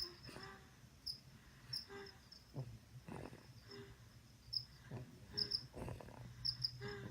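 A sleeper snoring: slow breaths, some with a low buzzing snore, and faint high chirping repeating throughout.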